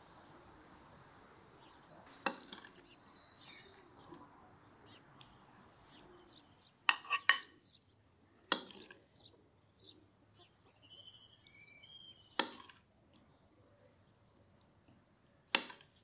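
A metal fork clinking against a clay plate as meat is served onto it: about six sharp, separate clinks, two of them close together about seven seconds in. Faint bird chirps in the background.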